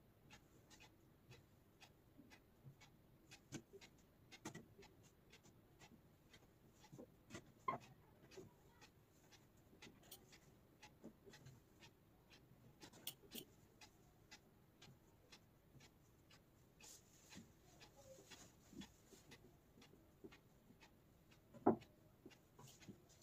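Faint rustling and small clicks as fabric is folded and pinned onto a dress form, with a louder knock near the end.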